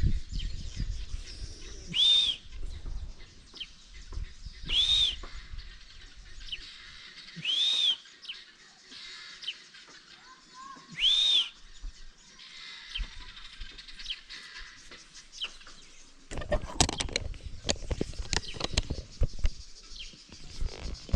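A bird calling: a short, high, arched note repeated four times, about three seconds apart. Near the end comes a run of sharp clicks and knocks.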